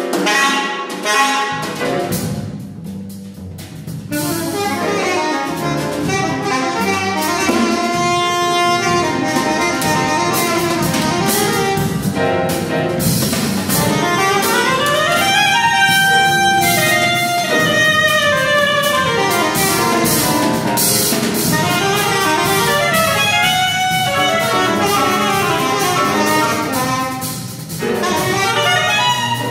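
Live jazz group playing: saxophone lines weaving over drum kit and cymbals. The playing is thinner about two to four seconds in and fuller from about four seconds on.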